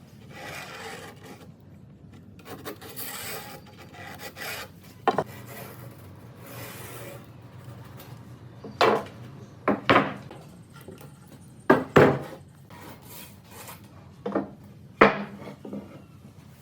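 Hand tool working wood: irregular scraping and rubbing strokes, broken by several sharp knocks. The knocks cluster between about nine and fifteen seconds in.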